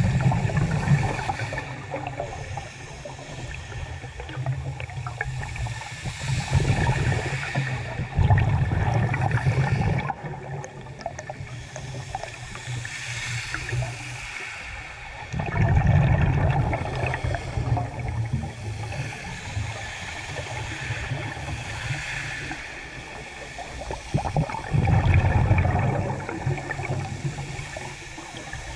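Scuba diver's regulator breathing heard underwater through a camera's dive housing. Exhaled air leaves the regulator as bubbling rushes, about five of them several seconds apart, with a quieter hiss in between.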